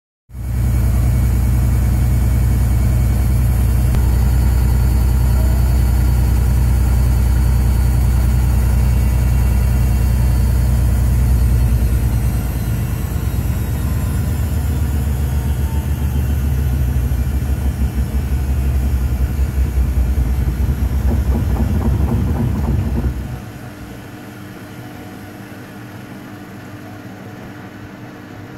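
Beko front-loading washing machine on a spin with an unbalanced load: a loud, steady low rumble and hum from the drum and motor, turning into an uneven, pulsing rumble about halfway through. With some five seconds left it drops abruptly to a much quieter hum.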